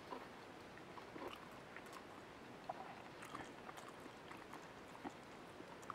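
Faint eating sounds: a person chewing a mouthful of dry curry rice, with scattered small clicks and a metal spoon scooping rice from a plate.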